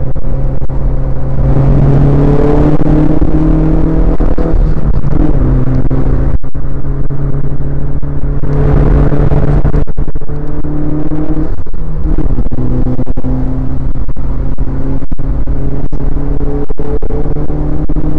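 Mitsubishi Lancer Evolution IX MR's turbocharged 2.0-litre four-cylinder heard from inside the cabin, very loud, pulling hard twice with its pitch climbing, between stretches of lighter throttle through the corners.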